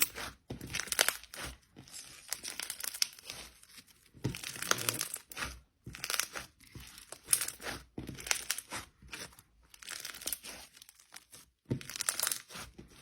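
Thick snow fizz slime with Bingsu beads being squeezed and pressed by hand, giving repeated bursts of dense crackling and crunching, a handful every second or two with short pauses between.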